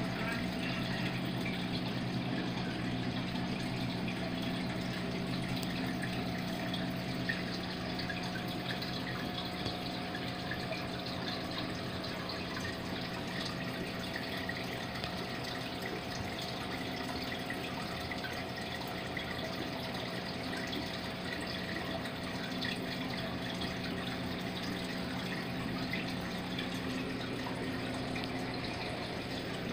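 A 55-gallon aquarium's pump and water circulation running steadily: a low motor hum under continuous trickling, bubbling water.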